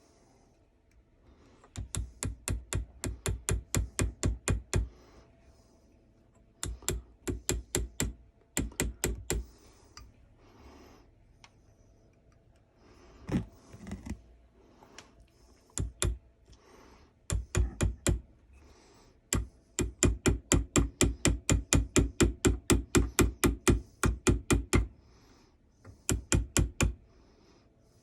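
Runs of quick, light, evenly spaced taps, about six a second, from a small mallet or hammer striking a carving chisel into a wooden rifle stock, with pauses between the runs.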